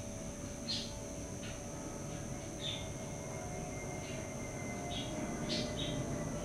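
Garden songbirds giving short, high chirps, about seven scattered through a few seconds, over steady low background noise.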